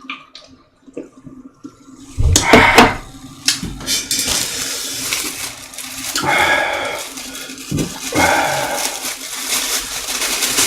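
Close-miked, wet slurping and eating of chicken soup, swelling into long slurps about two and a half, six and a half and eight and a half seconds in. It follows a few light clicks of a spoon or dish.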